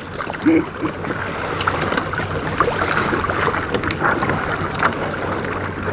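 Water sloshing and lapping against a kayak's hull, with wind buffeting the microphone.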